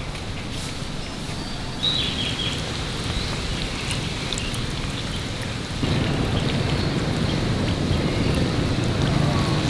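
Steady outdoor rushing noise with a short high chirp about two seconds in; the noise steps up louder and deeper about six seconds in.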